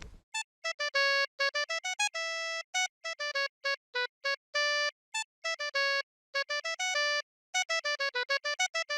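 Background music: a bouncy electronic melody of short, clipped notes with brief gaps between them, with no drums or bass.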